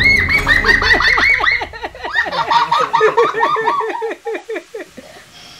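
Children laughing and giggling excitedly, a high voice at first and then lower ones joining in quick repeated giggles, dying away about four seconds in.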